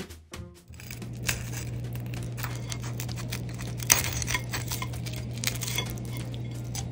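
Knife and fork cutting through crispy-skinned pan-fried salmon on a plate: scattered clinks and scrapes of the cutlery, the sharpest clink about four seconds in, over a steady low hum.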